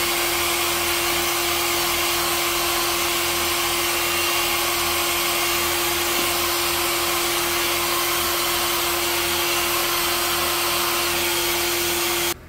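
Handheld hair dryer running steadily, a rush of air with a constant hum, blowing out wet acrylic pour paint; it cuts off suddenly near the end.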